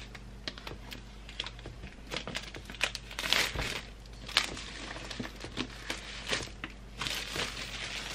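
Clear plastic shrink-wrap being torn and peeled off a MacBook Air box: irregular crinkling and tearing, loudest about three to four and a half seconds in and again near the end.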